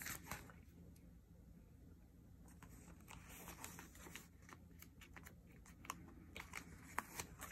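Faint paper-handling sounds: a sticker sheet being flexed and a sticker peeled off it with metal tweezers, with scattered light ticks and short rustles.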